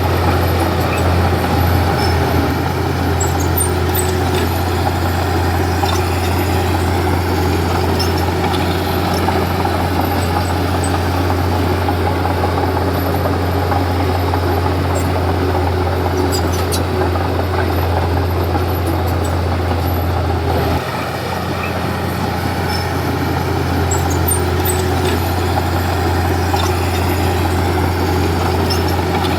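Komatsu D31P bulldozer's diesel engine running steadily, with a few faint clicks over it. About 21 seconds in, the engine note changes and the sound dips slightly before picking back up.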